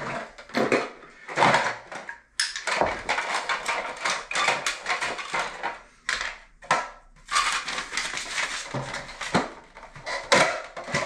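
Irregular rustling, knocking and clattering of hand work with plumbing parts at the old drain pipes in an open wall cavity.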